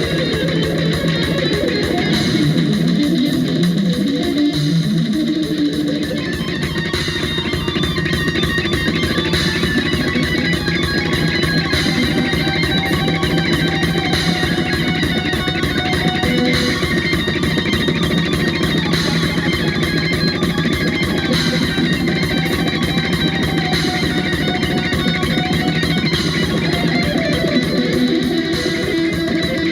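Live band music led by electric guitar, with bass underneath, playing steadily and loud throughout.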